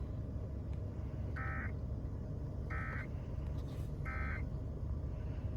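Three short bursts of Emergency Alert System SAME data tones, evenly spaced about 1.3 seconds apart: the end-of-message code that closes the alert. A steady low rumble runs underneath.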